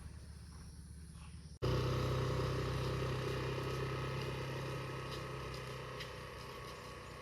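A motor vehicle's engine hum that starts abruptly about a second and a half in, then slowly fades as it moves away.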